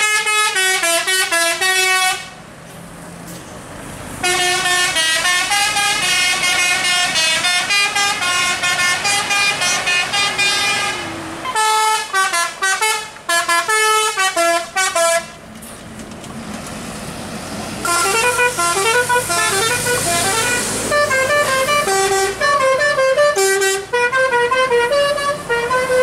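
Telolet basuri musical horns on passing tour buses, playing quick tune-like runs of stepped notes in long bursts with short breaks. Bus engine and road noise fill the gaps.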